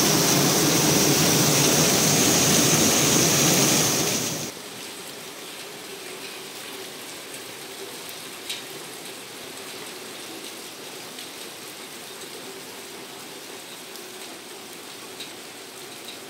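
Heavy tropical downpour, a loud dense hiss of rain pouring onto a patio and pool deck, that cuts off abruptly about four seconds in. After the cut comes a much softer, steady rain hiss over forest foliage, with a few separate drips.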